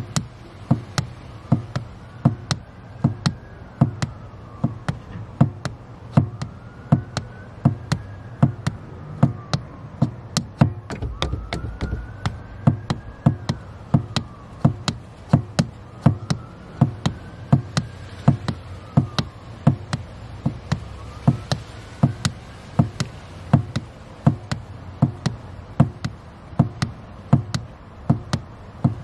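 Car engine running, its revs rising and falling gently about every five seconds as the accelerator is worked. Over it, a steady knocking of about two taps a second, the loudest sound, from the slippered foot pumping the accelerator pedal.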